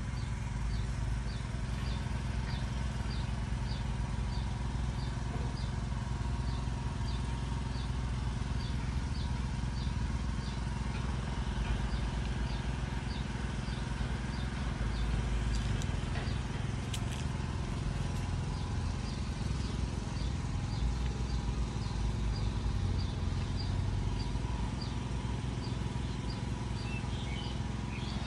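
Rural outdoor ambience: a steady low rumble, with a short high chirp repeating about every two-thirds of a second throughout.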